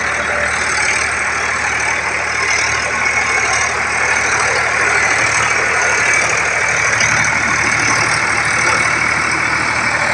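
Sonalika DI 745 tractor's diesel engine running hard and steadily under load while its rear tyres spin and dig into dry sand.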